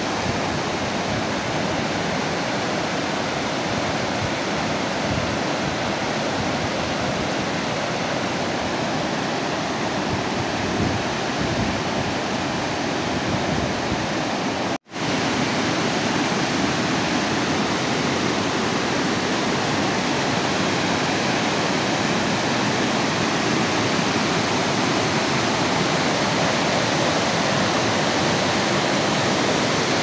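Broad waterfall pouring over a stone dam wall into a pool, a steady, dense rush of falling water. It cuts out for an instant about halfway through.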